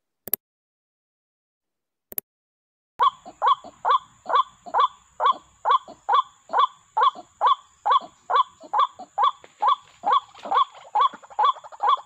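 White-breasted waterhen calling: a monotonous run of short, falling notes, about three a second, starting about three seconds in. Two brief clicks come before it.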